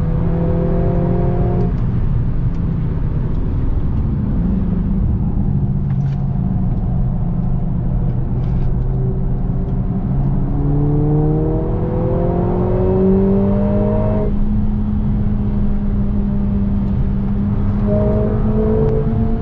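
Mercedes-AMG A45 S's turbocharged 2.0-litre four-cylinder heard from inside the cabin under heavy road and tyre noise. The car slows, then about ten seconds in the engine note rises steadily as it accelerates out of a corner, with a gear change a few seconds later and another rising pull near the end.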